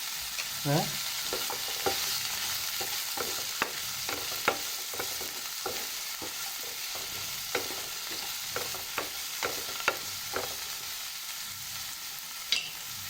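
Chopped onion and vegetables frying in hot oil in a pan, with a steady sizzle, while a utensil stirs them and knocks and scrapes against the pan many times.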